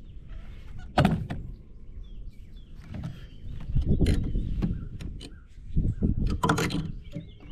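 Steel framing hammer striking 2x6 lumber: a few sharp knocks, a loud one about a second in, another about four seconds in, and a quick run of blows near the end.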